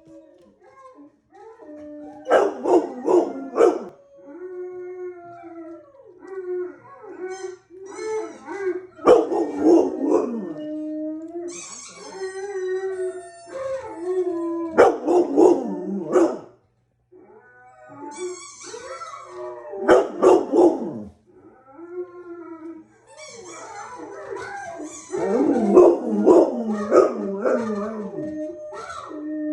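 Pet dog howling in long, wavering calls that slide up and down in pitch, broken about every five to six seconds by louder clusters of short, sharp yipping cries.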